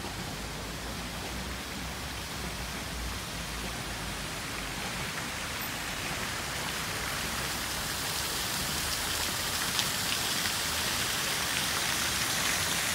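Ornamental fountain's water jets splashing into the basin: a steady hiss of falling water that grows louder toward the end.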